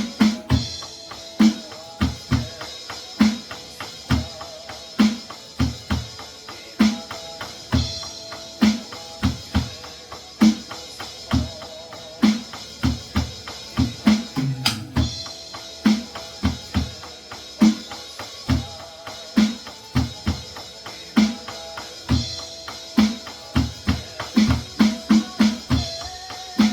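A Roland electronic drum kit playing a steady beat of kick and snare over the song's instrumental backing track, which carries a sustained melody line, with a run of quicker hits near the end.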